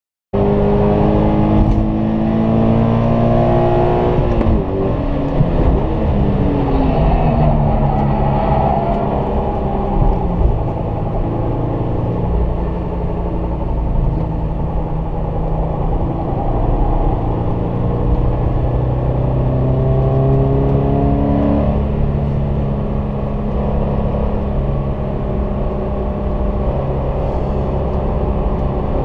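Subaru BRZ's FA20 flat-four engine running hot after hard track driving, its pitch rising and falling a few times with steadier stretches between, carrying an abnormal noise that the owner noticed only briefly after the hot lap before it faded away.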